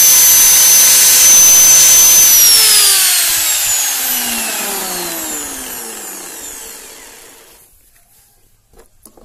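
Electric hand angle grinder running free at full speed with a loud high whine, testing its newly fitted carbon brushes. About two seconds in it is switched off and winds down, the whine falling in pitch over about five seconds until it stops.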